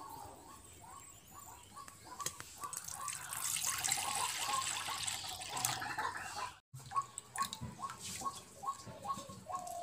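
Water poured in a steady stream into a steel bowl, splashing for about three seconds in the middle. Through it and around it, short high chirps repeat two or three times a second.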